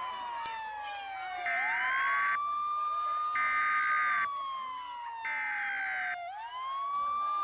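Emergency siren wailing: it holds a high pitch, slides slowly down and swoops quickly back up, twice. Three long blasts of a higher chord-like tone sound over it, about two seconds apart.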